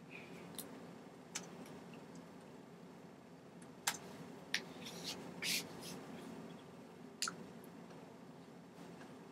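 A steady low room hum with a few soft, scattered clicks and taps and one brief rustle, the sharpest click about four seconds in and the longer rustle a little later. These are small movement noises of a person signing.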